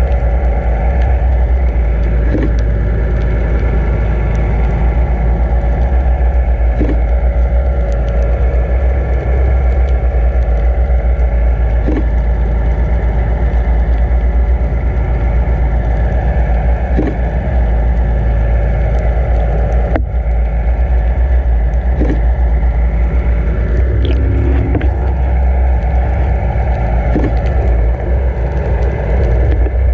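Underwater sound of a camera housing being towed behind a boat: a loud, steady low rumble of water rushing past the housing, with the tow boat's engine carried through the water as a steady hum, and a few faint ticks.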